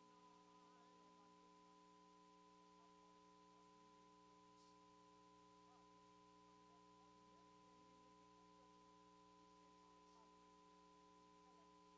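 Near silence, with a faint steady hum made of several constant tones.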